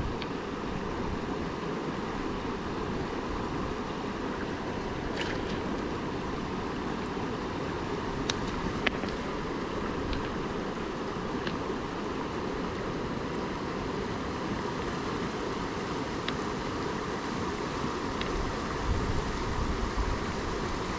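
Shallow mountain stream running over a stony bed: a steady rush of water, with a few faint clicks of stone on stone as rocks are set onto a small stack.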